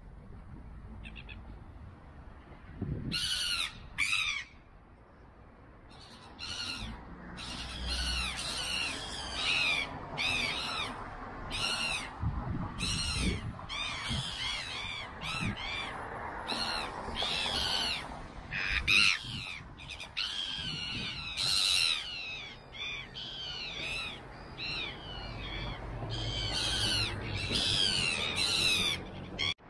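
Birds calling in a long run of short, repeated calls, some falling in pitch, starting about three seconds in.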